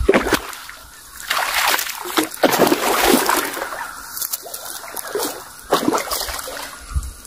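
Hooked barramundi thrashing at the water's surface, with irregular bursts of heavy splashing as it is played in close to the bank.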